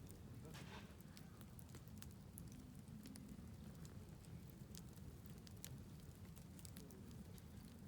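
Wood fire crackling faintly, with many small irregular pops and snaps over a steady low rumble.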